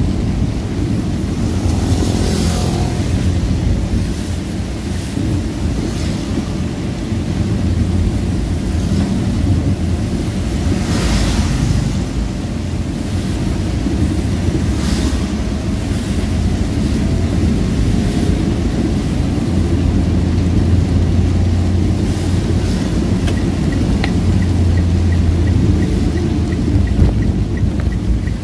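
Driving along a wet road in heavy rain: a loud, steady low rumble of rain and tyres on water, with a few louder hissing swishes of spray as vehicles pass.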